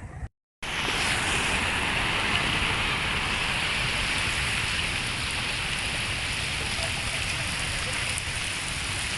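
Heavy rain pouring down in a steady hiss, starting abruptly after a brief moment of silence less than a second in.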